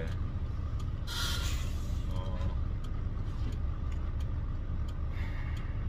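Steady low rumble of a truck on the move, heard from inside the cab, with a short hiss about a second in.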